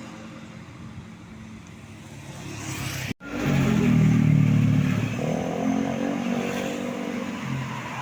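A tour bus passing close and loud, with strong pitched tones, after a lighter traffic rumble. The sound breaks off abruptly about three seconds in.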